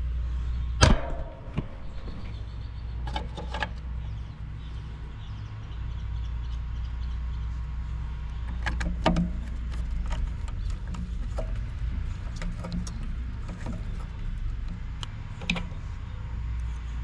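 Scattered sharp clicks and knocks from hand work on condenser wiring and contactor parts, the loudest about a second in, over a steady low hum.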